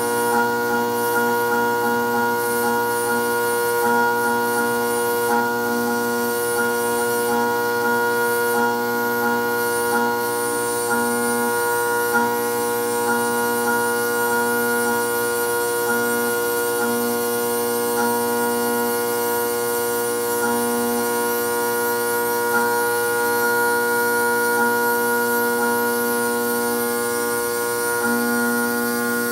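DIY CNC milling machine cutting steel gear teeth: a steady spindle whine with several fixed tones, and a lower hum that cuts in and out every second or so as the machine moves.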